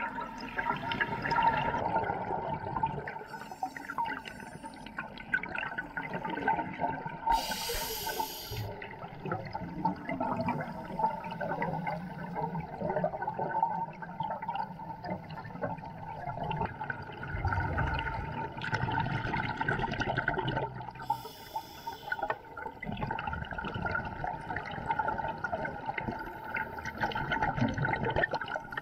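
Underwater sound of scuba breathing through a regulator: exhaled bubbles gurgling and bubbling, with a hissing inhalation about 8 seconds in and another around 21 seconds.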